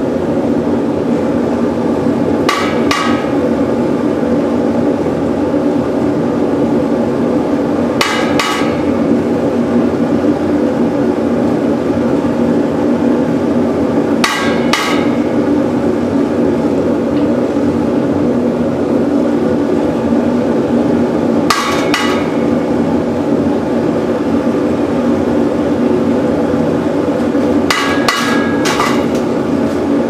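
Forced-air propane burner of a small casting furnace running steadily, its blower driving the flame. Over it, sharp metal knocks in quick pairs about every six seconds as a steel skimming tool strikes the steel crucible while dross is skimmed off the molten aluminium.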